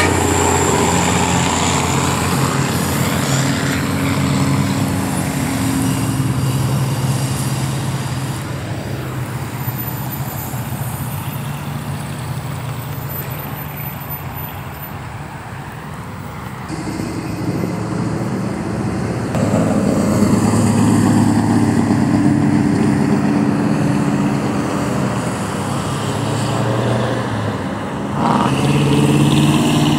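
Cars and trucks driving past on a street, their engines and exhausts running steadily. The sound swells as vehicles pass close, once about two-thirds of the way in and again near the end.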